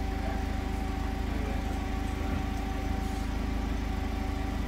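Toyota forklift engine idling steadily, with a thin steady whine above it.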